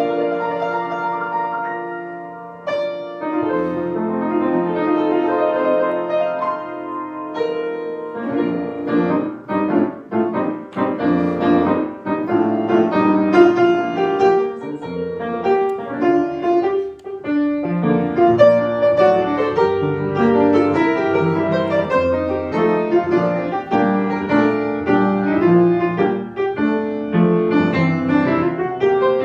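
Solo grand piano playing a hymn arrangement, with full chords and running notes, easing off briefly about two seconds in before carrying on.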